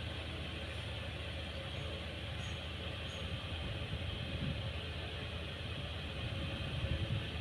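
Maspion F-18 DC desk fan running on speed 2 as its head oscillates, a steady whirr and rush of air from the blades with low gusty rumbles now and then. On this setting the airflow is not very strong.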